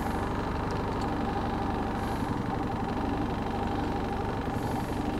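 Boat motor idling steadily.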